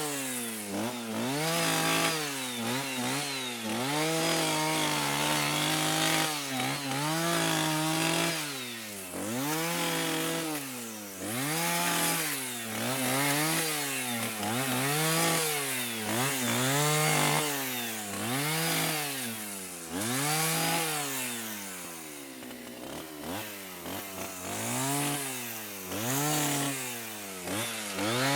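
Chainsaw engine revved up and down over and over, about once a second, its pitch climbing and falling with each rev of the throttle.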